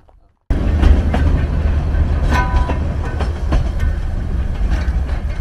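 Small salt-lake sightseeing train running on its rails: a steady low rumble with wheels clicking over the rail joints, cutting in suddenly about half a second in, with a brief high tone a couple of seconds in.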